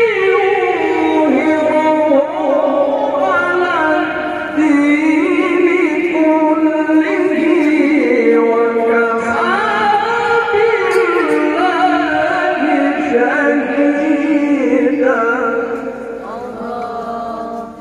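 A male qari reciting the Quran in tarannum style: one long, ornamented melodic line of held, wavering notes that glide between pitches, trailing off near the end.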